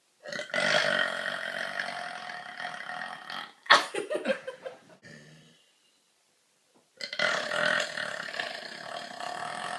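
A woman belching: two long drawn-out burps of about three seconds each, the second beginning about seven seconds in. A short sharp sound, the loudest moment, comes right after the first burp.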